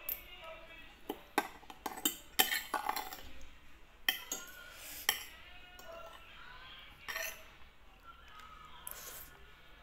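Metal spoon and fork clinking and scraping against a plate while eating, in irregular sharp clinks, most frequent in the first three seconds and sparser after.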